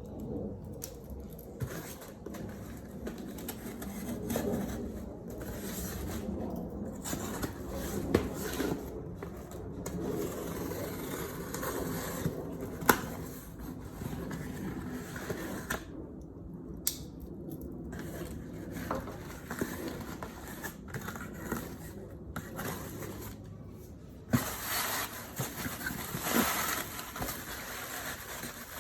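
Packaging being handled and opened by hand: irregular rustling and scraping, with scattered sharp clicks and taps.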